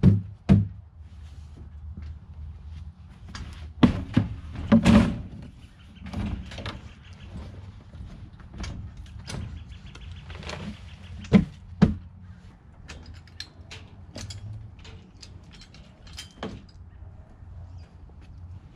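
Hollow knocks and thuds of plastic tubs being lifted, handled and set down on a wire-mesh cart and against wooden compost bins, with a few loud bangs in pairs and lighter clatter between them.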